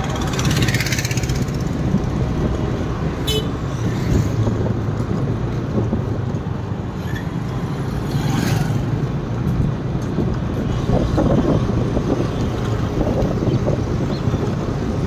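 Busy town street traffic: a steady rumble of engines and tyres from passing cars, motorcycles and auto-rickshaws, with a short vehicle horn toot about three seconds in.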